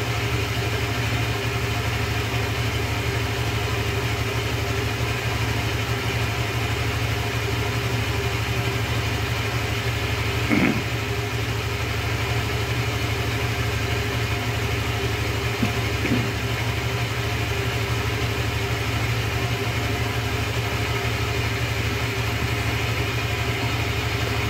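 Honda Click 125 scooter's single-cylinder four-stroke engine idling steadily. Two brief louder sounds come through it, about ten and sixteen seconds in.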